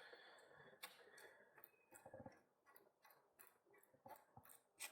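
Faint, irregular clicking: a dozen or so short, sharp ticks, spaced unevenly, a few every second.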